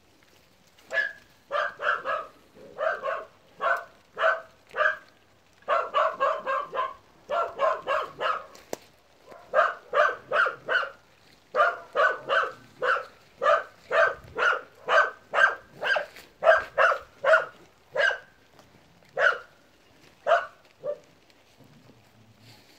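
A dog barking over and over, short barks in quick runs of about two a second, stopping shortly before the end.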